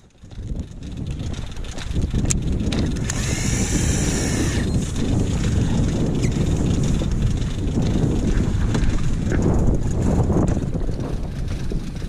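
Steady wind noise on the microphone, with a fishing reel whirring for about two seconds around three seconds in.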